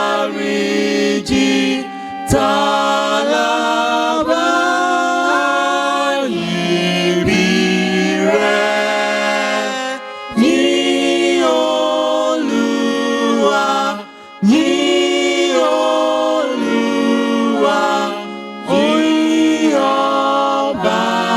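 A choir singing a hymn, mostly unaccompanied, in sustained phrases with short breaks about every four seconds.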